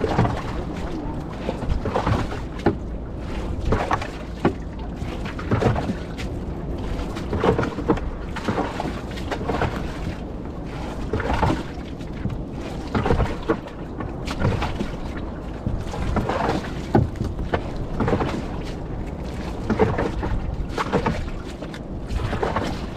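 Handling noise from picking fish out of a nylon trammel net in a woven bamboo basket boat: irregular rustles, taps and knocks over a steady low rumble.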